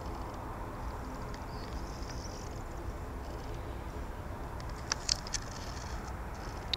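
Jet engines of a distant Airbus A320-214 running at idle as it taxis, a steady low rumble. Birds chirp over it about a second and a half in, with a few short, sharp chirps around five seconds in and near the end.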